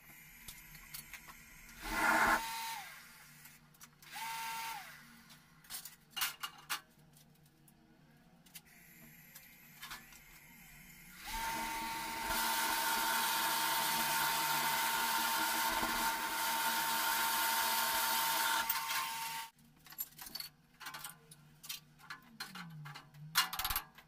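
Small electric blower feeding air into a handmade forge: it runs in two short bursts, each whining down as it stops, then runs steadily for about eight seconds with a whine and a loud rush of air before cutting off. Scattered light clinks and knocks follow near the end.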